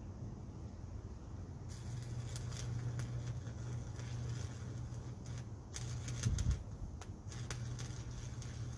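Welding arc crackling and sputtering in two runs, the first starting a couple of seconds in and the second after a brief pause, over a steady low hum; a dull thump just after the pause.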